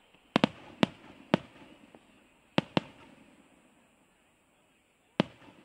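Aerial fireworks shells bursting overhead: about seven sharp bangs in an irregular rhythm, each trailing off in an echo. Several come close together in the first second and a half, then a pair, then a pause before one more near the end.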